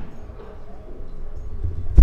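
Low thuds and rumble of a handheld camera being carried at a walk, handling knocks and footsteps picked up by its microphone, growing louder near the end, over faint store background noise.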